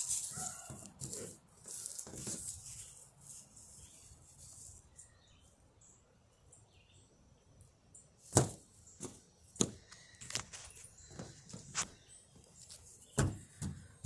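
Scattered rustles and small taps from hands handling sand-filled fabric lizard beanbag toys, quiet for a few seconds in the middle, with the loudest ticks about eight seconds in and again near the end.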